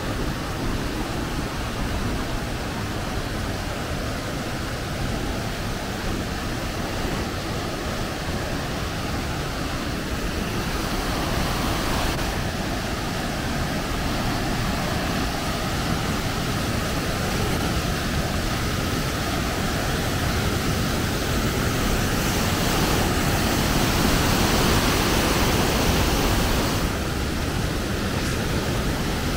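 Rushing water of waterfalls and cascades, a steady even rushing noise. It grows louder and brighter about two-thirds of the way through, then drops back suddenly shortly before the end.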